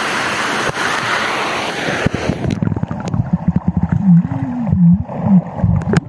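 Waterfall pool water rushing, then about two seconds in the microphone goes under water and the sound turns muffled: low gurgling, sloshing and bubbling, with low wavering tones near the end.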